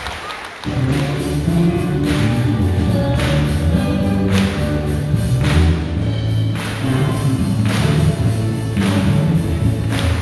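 Applause dies away and, about a second in, music starts with a strong bass line and a steady beat.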